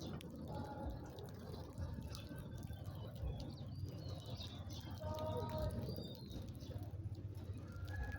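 Small birds chirping and twittering, many short overlapping calls with a few brief held notes, over a steady low rumble.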